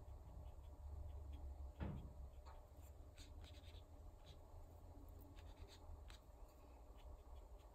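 Faint, soft scratching of a small watercolour brush stroking paint onto cold-press watercolour paper, over a low steady hum. One brief, louder sound comes about two seconds in.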